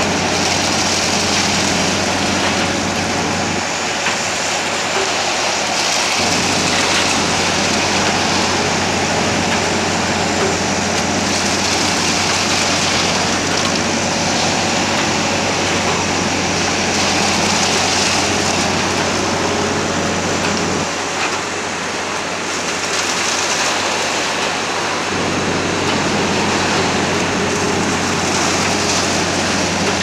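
Backhoe loader's engine running steadily, driving a hydraulic concrete pump attachment that is pumping concrete, with a steady low hum under a loud, even hiss. The low hum drops away briefly twice.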